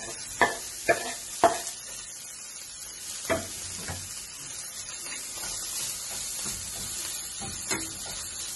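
Shredded chicken tipped from a wooden board into a non-stick frying pan of garlic, the board knocking on the pan several times in the first few seconds. Then a steady light sizzle as a metal spoon stirs the chicken through the hot pan, with one more knock near the end.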